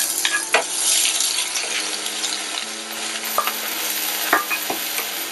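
Chopped shallot and garlic sizzling in hot oil in a frying pan, stirred with a wooden spoon that knocks and scrapes against the pan now and then.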